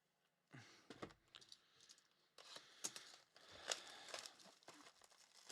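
Faint rustling and crinkling with light clicks as trading cards and their pack wrappers are handled.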